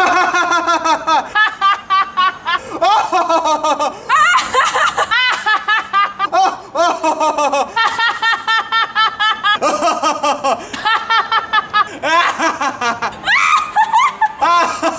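People laughing hard and loudly, a woman and a man, in long breathy bursts one after another.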